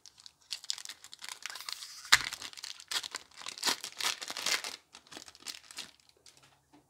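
Foil booster-pack wrapper of Pokémon trading cards being torn open and crinkled by hand: a run of crackling rustles with one sharp rip about two seconds in, dying down near the end.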